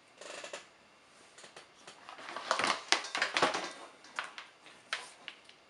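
Power cord of an ash vacuum cleaner being pulled off the top of the machine: irregular rustling, scraping and clicking as the cord and plug rub and knock against the plastic lid and steel bin. It is loudest in the middle.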